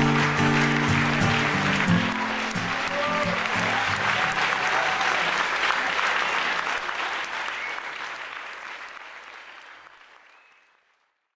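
Audience applause over guitar music. The music thins out after a few seconds, and the clapping fades away to silence near the end.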